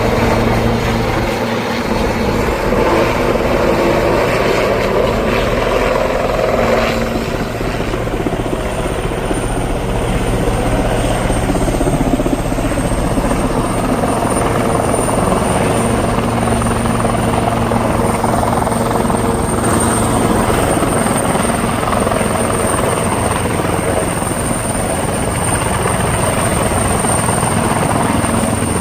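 Firefighting helicopter running steadily overhead, its rotor and turbine making a loud, even noise; a thin high whine comes in about eight seconds in and holds.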